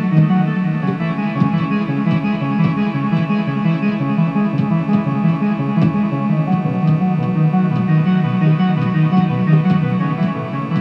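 Instrumental synth ambient music in a retro trance style: a quick, repeating plucked-sounding bass pattern under sustained chords, with light regular ticks on top.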